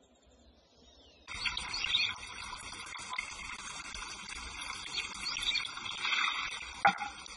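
A dense chorus of chirping insects and birds sets in suddenly about a second in. About seven seconds in, a bamboo shishi-odoshi (deer scarer) swings back after emptying and strikes its stone with a single hollow knock.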